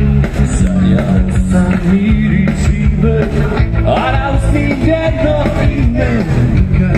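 Live band playing rock and roll: a man singing over amplified electric guitar and electric bass, with a steady beat.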